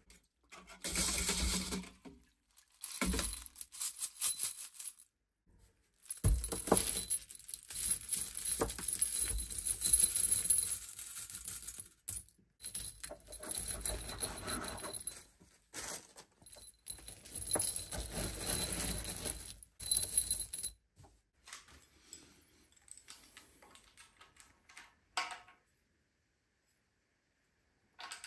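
Small steel hardware (bolts and similar engine fasteners) clinking and rattling against each other as they are handled, in several separate bursts with short pauses, turning lighter and sparser near the end.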